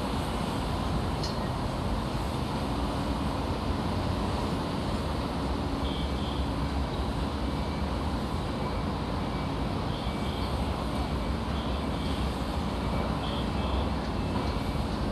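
Construction-site ambience: a steady low rumble of machinery and traffic, with faint short high tones now and then in the second half.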